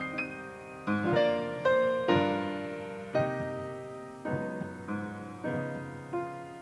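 Solo piano playing a slow, gentle piece, chords struck about once a second and left to ring and fade.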